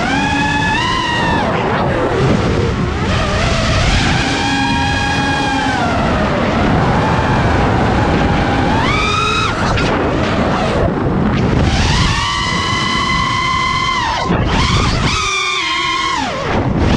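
FPV quadcopter's brushless motors whining through the onboard camera, the pitch climbing and falling again and again with throttle over a rush of wind. Near the end the whine breaks off suddenly twice for a moment before picking up again.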